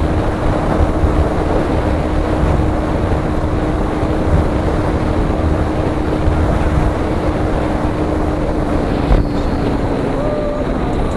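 A motorcycle riding at a steady speed, its engine hum buried under heavy wind buffeting on the microphone. There is a single thump about nine seconds in.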